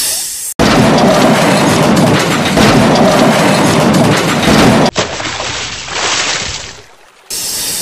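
Loud rushing, rumbling noise that starts abruptly and stops abruptly about five seconds in. It is followed by a quieter hiss, and another burst of noise is cut in near the end.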